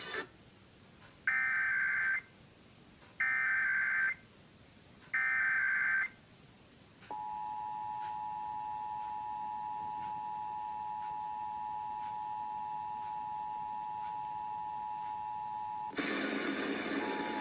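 Emergency Alert System test broadcast. Three short bursts of SAME digital header data, each just under a second and about a second apart, are followed by the EAS two-tone attention signal, a steady dual tone held for about nine seconds. About sixteen seconds in, a louder, noisier sound cuts in over the tone.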